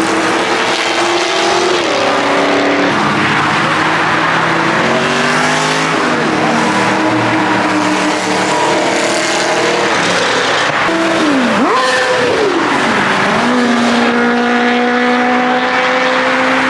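Several car engines running and revving at once, their notes rising and falling over one another. About eleven seconds in one engine drops sharply and climbs again, then settles into a steady held note.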